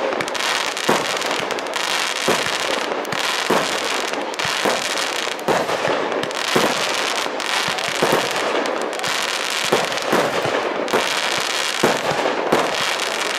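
Aerial fireworks display: a dense, continuous crackle of bursting shells and glittering stars, broken by sharp bangs about once or twice a second.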